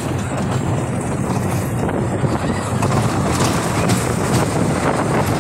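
Dahlonega Mine Train roller coaster running along its tubular steel track, heard from aboard: a steady noise of the train's wheels on the rails.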